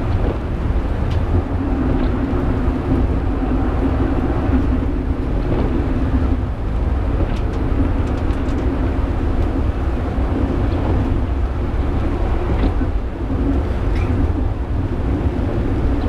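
Penang Hill funicular car climbing the track, heard from the cab: a steady rumble of wheels on rails with a low hum that fades about six seconds in and comes back near the end, and a few light clicks.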